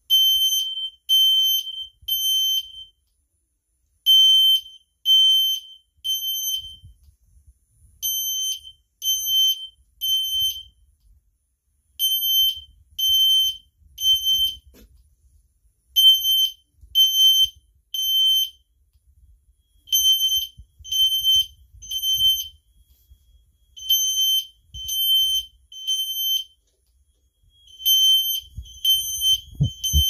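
Fire alarm horns sounding the temporal-3 evacuation pattern: three high half-second beeps, then a pause, repeating about every four seconds. Near the end a second, steadier alarm tone joins in.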